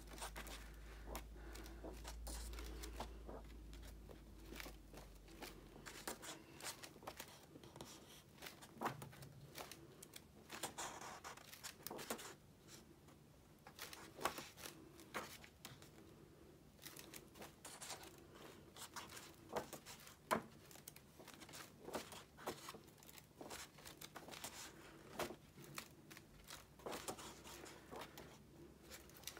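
Pages of a large illustrated hardback book being turned one after another: soft, faint paper rustles and flicks every second or two.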